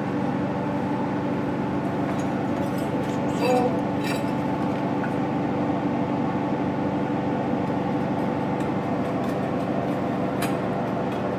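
Tractor diesel engine running at a steady pitch, with a few light clicks and clinks about two to four seconds in and one sharp click near the end.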